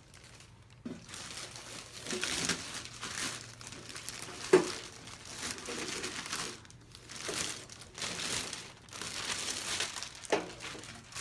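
Packaging crinkling and rustling in repeated bursts as a new toaster oven is unwrapped, with one sharp knock about four and a half seconds in.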